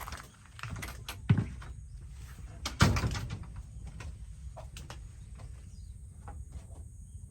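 A few scattered knocks and clicks of something being handled, with two louder thumps, about a second in and about three seconds in.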